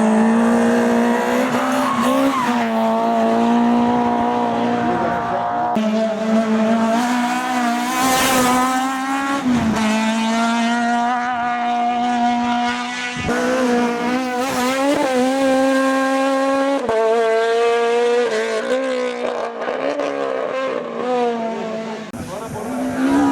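Hillclimb race car engines running hard at high revs, the note holding high, then dipping and climbing through gear changes. The sound jumps abruptly several times where separate clips are cut together.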